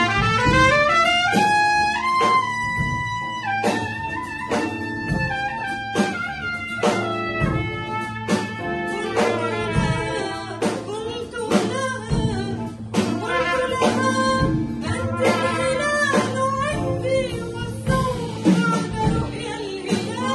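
Live big band playing an Arabic song arrangement, with a trumpet carrying the melody over drum kit and rhythm section; the trumpet opens with a rising run.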